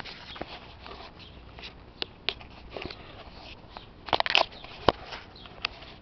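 Handling noise of a handheld camera, with fingers rubbing and pressing on it: scattered sharp clicks and rustles over a low hiss, loudest in a short burst of crackling about four seconds in. There is no steady or pitched sound from the sky.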